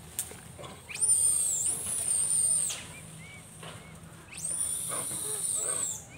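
Two long, shrill, very high-pitched screams from a macaque, each about a second and a half, sweeping up at the start and falling away at the end.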